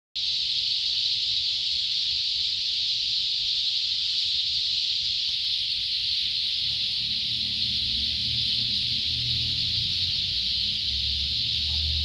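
A dense chorus of many birds calling at once, blending into a continuous high-pitched din with no single song standing out.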